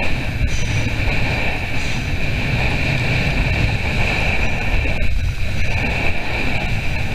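Wind buffeting the microphone over water rushing along the hull of a small sailing dinghy under way, a steady hiss over a low rumble.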